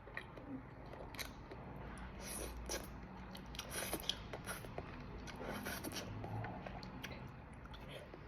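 Close-up eating sounds: a person chewing and biting through a mouthful of cheesy spicy instant noodles, with irregular small wet clicks and crackles.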